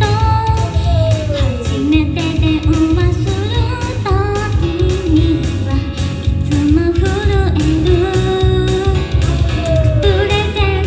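Live idol pop song: a female singer's melody over a loud backing track with a steady beat.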